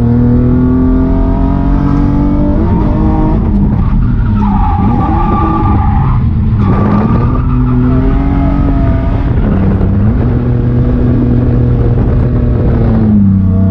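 BMW E36 325i's stock M50B25 straight-six, through an ISR blast pipe exhaust, revving up and down while drifting, with a high tyre squeal about halfway through.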